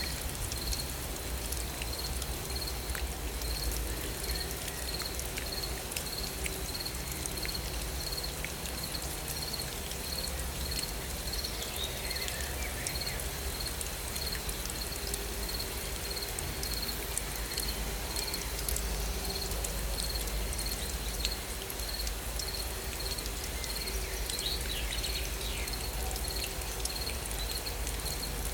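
Steady rain falling, with fine drop ticks in an even hiss. Over it, an insect chirps in a high, even pulse, about one and a half chirps a second.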